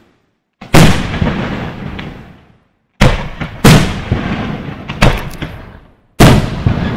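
Aerial firework shells bursting: five loud bangs, one of them fainter, each followed by a long echo that dies away over a second or two.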